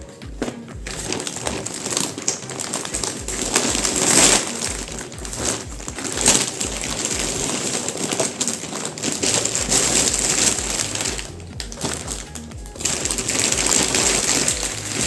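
Background music with a steady low beat, over the rustle and crinkle of plastic packaging being opened by hand.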